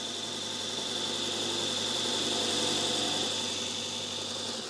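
Sorby ProEdge sharpener motor running steadily with a constant high whine over a low hum. It spins a rouge-charged leather honing wheel on a pigtail mandrel while the edge of a steel wad punch is held against it for stropping.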